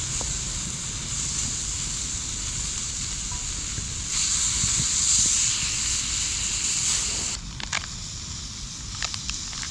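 Food frying in a skillet over a wood fire, a steady sizzle that grows louder about four seconds in and stops abruptly a little after seven seconds. After that, a few sharp crackles and pops from the burning wood.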